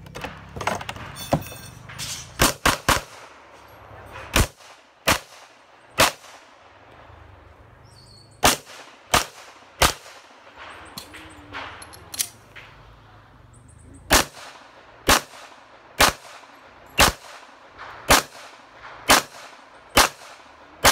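Handgun shots fired during a timed pistol course: about sixteen sharp reports, each with a short ringing echo. After a quick pair near the start, the shots come in short strings, then pause for about four seconds, then run steadily at about one a second to the end.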